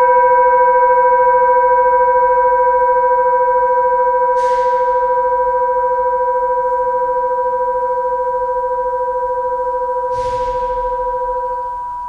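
Seven-metal singing bowl ringing: a sustained hum with several overtones that slowly fades with a gentle wavering, the highest overtone dying away first. Two brief soft swishes come about four and ten seconds in.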